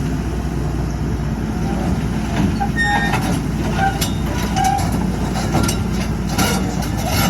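Hydraulic excavator's diesel engine running steadily under load. From about two seconds in come scattered metallic knocks and a few short squeaks.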